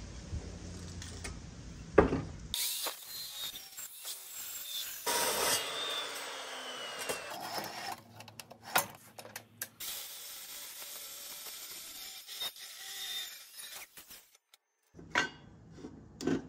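Hands working a metal-cutting miter chop saw: sharp clicks and knocks of its clamps and miter table and the rubbing of metal parts, in short bursts separated by edits.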